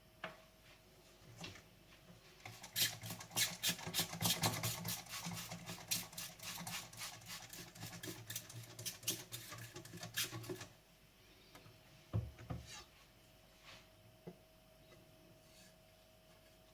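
A blue-steel carbon gyuto blade being stroked back and forth on a wet Naniwa whetstone: a run of rasping strokes, about three a second, lasting some eight seconds. A single low knock follows.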